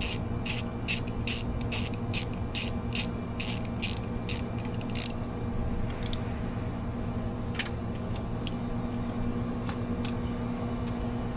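Socket ratchet clicking in an even run of about three clicks a second for five seconds as the shifter linkage rod's locknut is tightened back down, then a few scattered single clicks.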